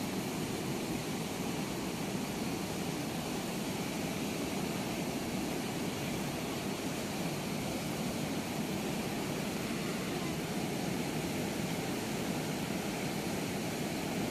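Steady rush of turbulent river water pouring through the open sluice gates of a barrage, an even, unbroken noise.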